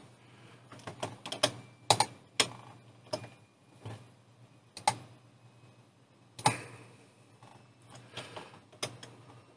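Irregular clicks of a computer mouse and keyboard keys, about fifteen in all and unevenly spaced, some in quick pairs.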